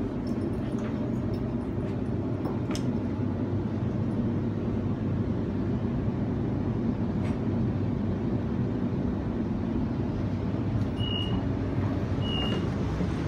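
Steady low rumble inside a double-deck suburban electric train as it runs and slows into a station, with a few sharp clicks. About eleven seconds in, short high beeps start, about one every 1.2 seconds: the door alert as the doors open.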